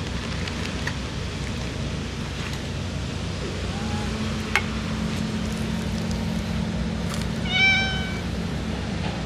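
A domestic cat meows once near the end, the loudest sound here. There is a single sharp click about halfway through.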